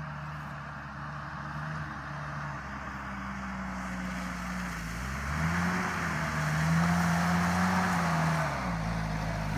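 1989 Mitsubishi Pajero short-wheelbase 4WD's engine revving as it drives up out of a muddy gully and across grass, growing louder as it approaches. The engine note rises about five seconds in, holds, and dips near the end before climbing again.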